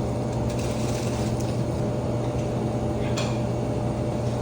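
Steady low machine hum with a constant higher tone over it, and a few light clicks, the clearest a little after three seconds in.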